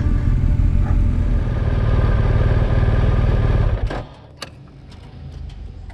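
Motorcycle engine running steadily, then stopping abruptly about four seconds in, followed by a couple of faint clicks.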